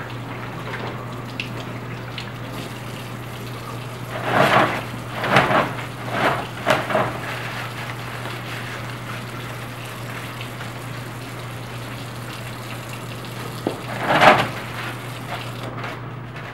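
Tap water running steadily into a stainless steel sink during handwashing, with a few louder splashy bursts about four to seven seconds in and again near the end; the water stops just before the end.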